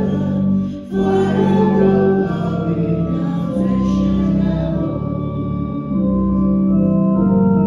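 A hymn sung with organ accompaniment, in slow held notes with a short break just before one second in; the singing thins out about five seconds in and the organ plays on.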